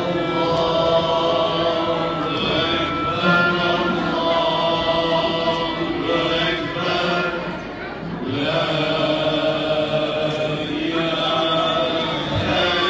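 Male choir singing a devotional hymn in unison in long held phrases, with a short break about eight seconds in, backed by a Turkish ensemble of oud, kanun, ney, frame drum and violin.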